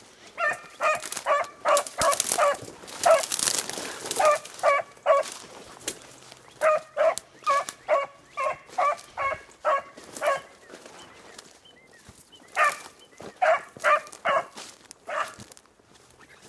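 A single beagle giving tongue on the run: short, ringing bays in quick strings of several, about three or four a second, broken by pauses, the hound's voice on a scent trail. A brief rustle of brush comes about three seconds in.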